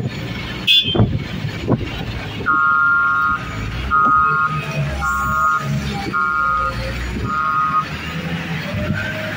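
JCB wheel loader's reversing alarm beeping five times, starting about two and a half seconds in, each beep just under a second long, over the steady running of its diesel engine. A few sharp knocks come in the first couple of seconds.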